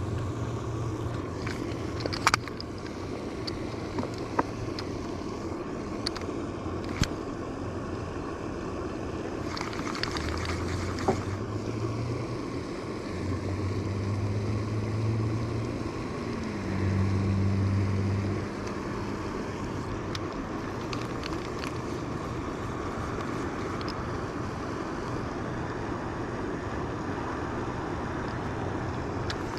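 A low motor hum that comes and goes several times and shifts pitch once, over steady outdoor noise, with a few sharp clicks.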